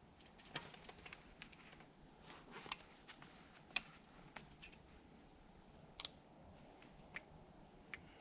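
Faint, irregular clicks and ticks of a hand grease gun being worked on the grease zerks at an excavator's bucket pivots, with two sharper clicks about four and six seconds in.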